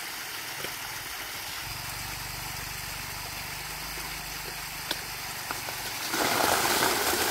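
Wet mortar tipped from a basket down onto a stone wall, a loud rushing noise starting about six seconds in and lasting about two seconds. Before it a small engine runs steadily underneath, with a stream rushing in the background.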